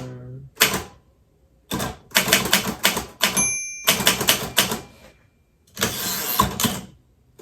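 Royal typewriter keys striking in irregular quick bursts of clacks, with a brief ring about halfway through and a longer noisy rush near the end.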